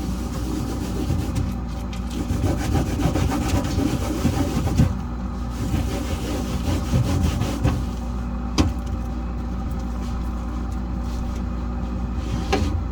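A Norwex cleaning cloth scrubbing and wiping a fridge surface in uneven rubbing strokes, over a steady low hum. Two sharp knocks come later, one past the middle and one near the end.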